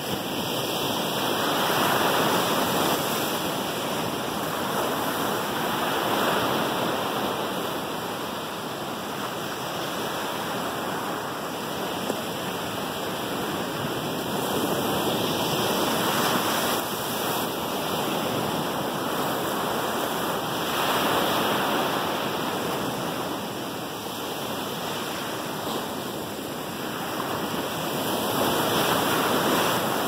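Ocean surf breaking on a sandy beach: a steady wash of water that swells every several seconds as each wave breaks and runs up the sand.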